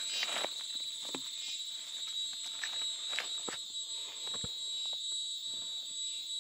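Insects keep up a steady high-pitched drone, while a cloth bag tied with cord is untied and opened, with faint rustles and small clicks of the fabric and cord being handled.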